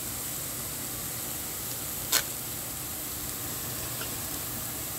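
Rice stick noodles sizzling steadily in a hot pan, with one sharp knock of a metal spoon against the pan about two seconds in.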